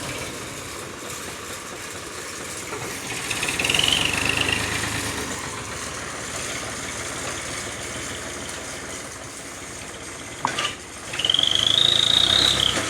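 Tractor engine running, revved up hard twice with a high whine, about three seconds in and again near the end, with a couple of sharp knocks just before the second rev.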